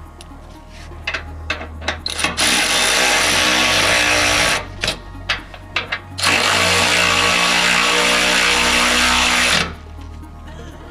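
A handheld power tool spinning a socket on a bolt in two long runs of about two and three seconds, with short sharp clicks before and between the runs.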